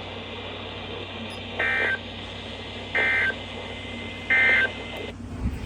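Emergency Alert System end-of-message data burst: three short, identical bursts of two-tone digital warbling, about 1.3 s apart, marking the close of the alert. A steady low hum runs underneath.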